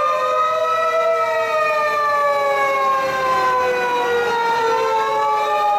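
Wailing sirens of more than one Japanese fire engine on an emergency run, overlapping, each sliding slowly down in pitch, with a new wail rising about four seconds in.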